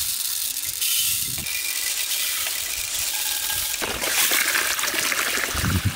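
Dry red lentils pouring from a metal tray into a large aluminium bowl: a steady hiss of falling grains that turns grittier and more rattly about four seconds in.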